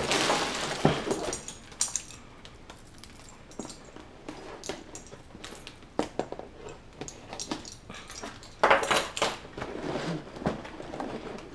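A cardboard box being opened and handled: scraping and flaps pulled open, with scattered taps and rustles and a louder burst of scraping about nine seconds in.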